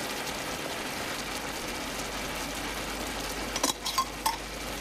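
Chicken in broth simmering in a large frying pan, a steady bubbling hiss. A few light clinks come near the end.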